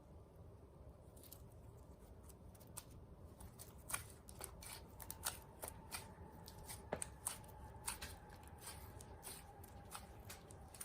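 Hand-worked slime, faint and sticky, making a scatter of irregular small clicks and pops as it is stretched and pressed.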